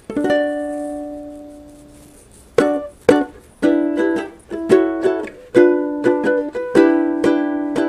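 Intro music on a strummed string instrument: one chord struck and left to ring for about two seconds, then a rhythmic strumming pattern starting about two and a half seconds in.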